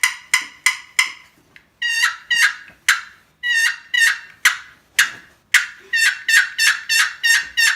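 Turkey calling from a short 'pocket rocket' wooden box call, worked with short strokes of the paddle: a string of short, raspy hen notes in groups of two to four with brief pauses between, running faster near the end.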